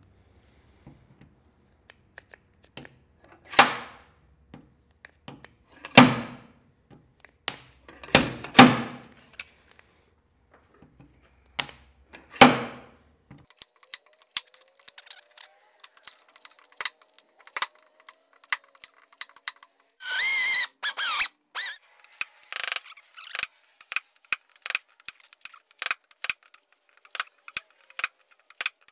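Stud-welder dent puller (Vevor G90E) firing short crackling weld zaps as its tip fuses to the hood's bare metal, four of them in the first half over a low electrical hum. After a brief pitched squeal, a quick run of sharp clicks follows to the end as the slide-hammer puller works the dent.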